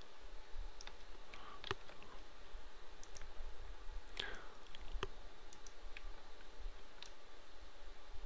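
Sparse, irregular clicks of a computer mouse and keyboard, over a faint low hum.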